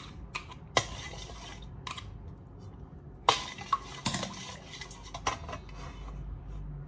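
Plastic spatula and spoon stirring in a stainless steel mixing bowl, with a few sharp clinks against the metal, the loudest a little past three and four seconds in.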